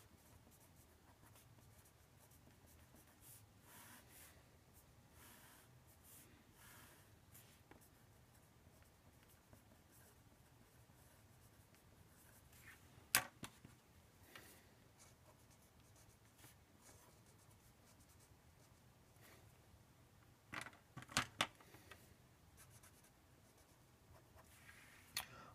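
Faint strokes of a marker pen writing and drawing on paper, with one sharp tap about halfway through and a quick cluster of taps a few seconds before the end.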